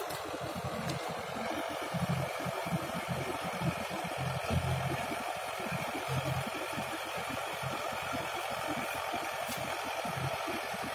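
Mahindra 575 DI tractor's diesel engine running steadily while its rotavator churns the flooded mud of a paddy field, with an even wash of noise over the low engine hum.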